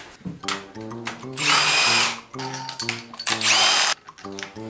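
A cordless power tool spinning up in two short bursts about two seconds apart with a rising whine, undoing the cylinder head bolts one by one. Background music with a steady beat plays underneath.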